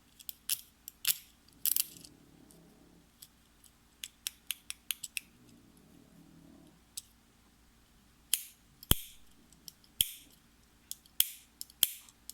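Buttons and switches of a game-controller-shaped fidget pad being clicked: sharp, irregular clicks in quick flurries, with a quieter pause in the middle.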